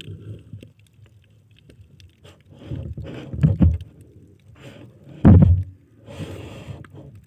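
Muffled water movement around an underwater camera: irregular low sloshing and soft knocks, a loud thump about five seconds in, then a short rushing hiss.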